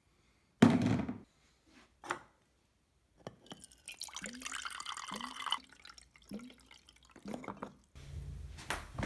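A thump and a click, then water running from the tap of a small desktop water dispenser into a glass for about two seconds, followed by several short low glugs from the dispenser.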